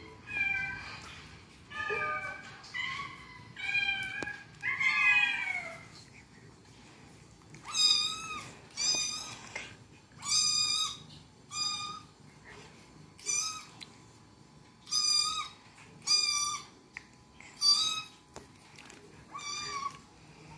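Cat meows, most likely from a cat video playing on a smartphone's speaker. First about five longer meows that bend and fall in pitch, then, after a short lull about six seconds in, a run of about ten short, high kitten meows, roughly one every second or so.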